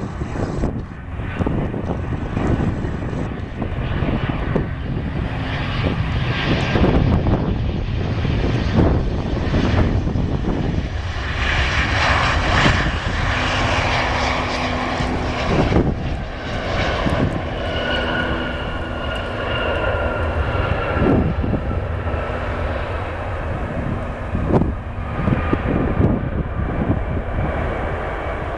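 Boeing 737-800 airliner's CFM56-7B turbofan engines on landing. The jet roar swells to its loudest about twelve seconds in as the plane passes close, then steady whining engine tones drift slightly lower in pitch as it moves away down the runway.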